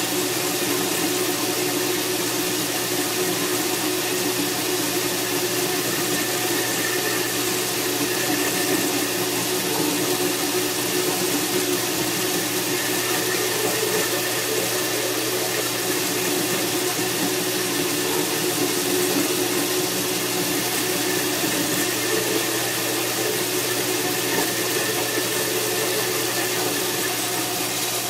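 Vertical bandsaw running steadily, its blade cutting through a scrap metal bar fed by hand, with a steady motor hum under the cutting noise.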